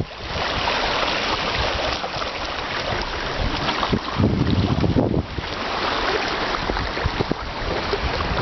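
Wind buffeting the microphone aboard a sailboat under sail, with the rush of sea water. Heavy low rumbling gusts come and go, the strongest about four seconds in.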